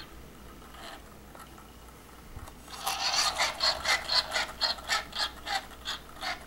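Rhythmic scraping squeak from a rotating display turntable as it turns, about four short strokes a second. It gets clearly louder about three seconds in.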